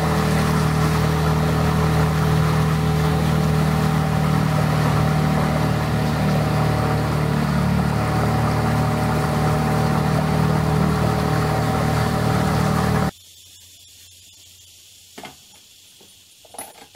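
Small river boat's engine running steadily at cruising speed, heard from on board. It cuts off abruptly about 13 seconds in, leaving quiet with two faint knocks.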